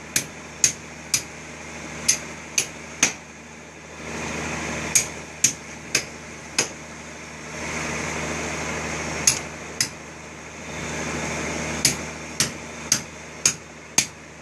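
Sharp clicks or knocks in short runs, about two a second, over a steady low machine hum, with stretches of rushing hiss between the runs.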